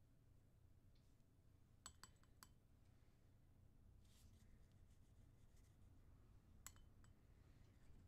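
Near silence: room tone with a steady low hum and a few faint light clicks, a cluster about two seconds in and one more near the end.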